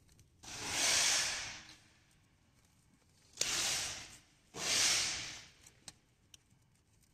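Three soft hissing bursts, each about a second long; the second one starts abruptly, the others swell and fade.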